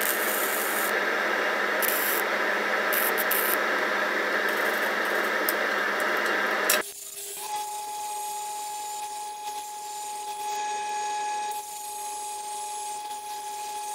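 Flux-core (gasless) MIG welding arc from a Lincoln 140MP, running steadily for about seven seconds as a touch-up bead is laid over pits in the weld. It stops suddenly, and an angle grinder with a flap disc takes over more quietly with a steady whine, grinding the weld flush.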